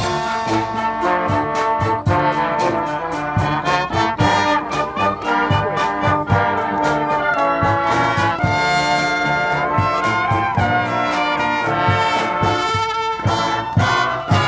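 Marching band playing loud brass chords, with trumpets on top, over a steady, evenly spaced drum beat.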